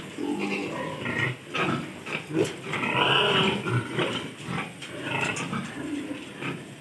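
A group of piglets grunting and squealing in short, overlapping calls, with a louder, higher squeal about three seconds in.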